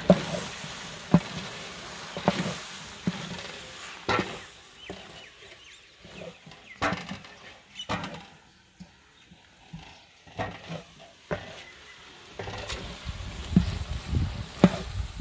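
Wooden spoon stirring chicken and green peas frying in a large aluminium pot, with sizzling and irregular knocks and scrapes of the spoon against the pot.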